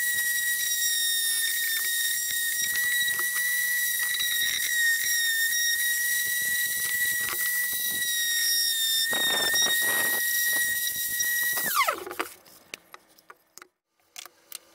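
Electric random orbital sander running with a steady high whine while sanding the edges of an aspen panel. About twelve seconds in it is switched off and the whine falls in pitch as the motor spins down.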